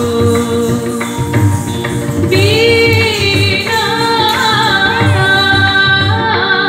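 Dance song with singing over a steady drum beat.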